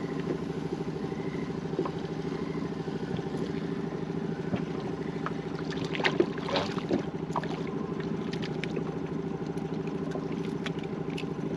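A motor running with a steady low drone. Scattered clicks and knocks from the rod and reel being handled partway through.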